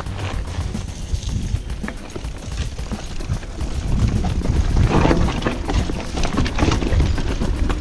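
Mountain bike rolling down a rough dirt trail: the bike rattling and knocking over bumps, with the tyres on dirt and loose stones and wind buffeting the microphone. The rattling gets louder and busier about four seconds in.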